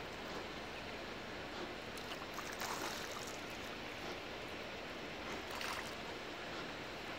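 Water lapping gently at a pebble shore, with two brief splashy swishes about two and a half and five and a half seconds in.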